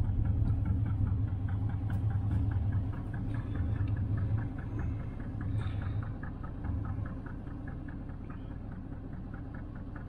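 Chevelle Nomad wagon's V8 engine, taken from a 2001 Silverado, idling steadily with a regular light ticking about five or six times a second. The engine has a random misfire that the code reader logs as P0300.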